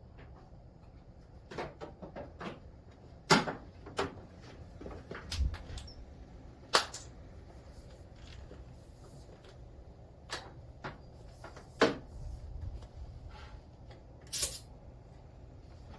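A handful of separate sharp clicks and knocks, spread out with pauses between them, from quick-connect air-line couplers being pushed and locked onto tire valve stems.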